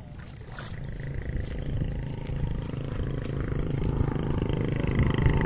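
A small engine running with a low, steady hum that grows steadily louder.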